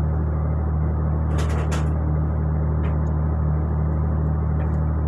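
Ship's engine machinery running with a steady low drone, with a brief rustle about a second and a half in.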